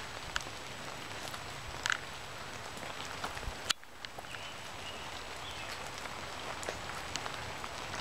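Rain pattering on bamboo and palm leaves: a steady hiss scattered with many small drip ticks, and one sharper knock a little before halfway.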